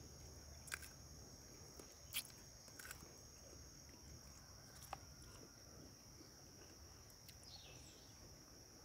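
Faint, steady, high-pitched insect chirring, with a few soft clicks scattered through it.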